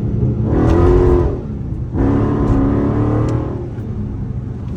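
Dodge 392 Scat Pack's 6.4-litre HEMI V8 accelerating under a little throttle. The engine note swells twice, with a short drop about a second and a half in.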